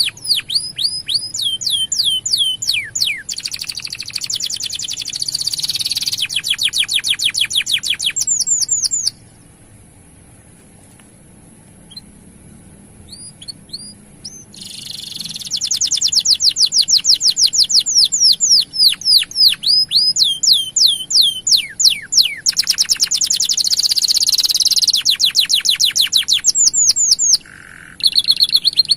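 Male domestic canary singing a long song of fast trills, each made of rapidly repeated falling notes. The song breaks off about nine seconds in, leaving only a few scattered notes, then resumes about five seconds later.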